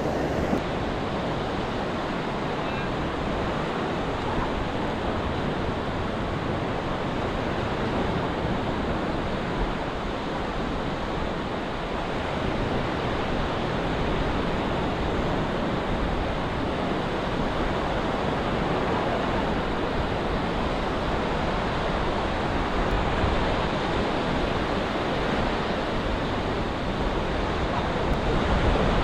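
Steady surf breaking and washing on the shore, with wind rumbling on the microphone.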